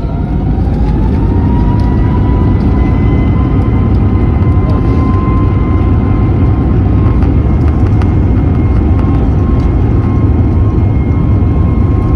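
Airbus A321neo's turbofan engines spooling up to takeoff thrust, heard from inside the cabin: a rising whine that levels off about two seconds in and then holds steady over a loud, even rumble.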